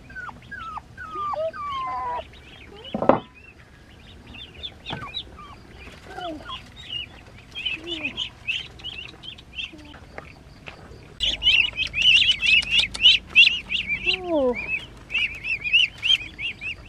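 Ducklings peeping, a dense chorus of short high chirps that becomes loud about eleven seconds in. Puppies whine in a few falling cries, and there is a single loud thump about three seconds in.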